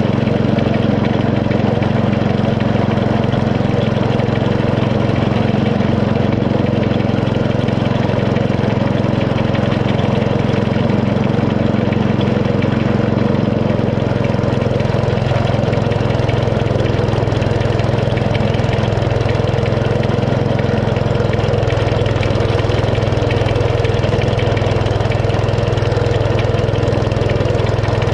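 Small petrol engine of a 7 1/4-inch gauge miniature railway locomotive running steadily as it hauls the train.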